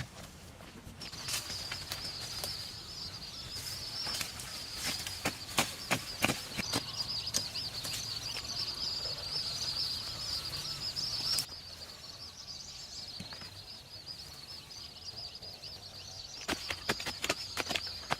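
Sharp knocks and taps of hand-tool work, perhaps chopping, in clusters. A steady high-pitched buzz of jungle insects starts about a second in and eases after the middle.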